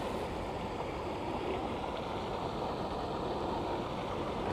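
Steady outdoor riverbank background noise: an even hiss with no distinct events.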